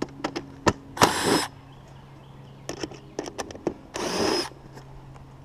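Makita cordless driver spinning a screw in a metal gutter guard: two short runs of about half a second each, one about a second in and one near four seconds, with small clicks between them.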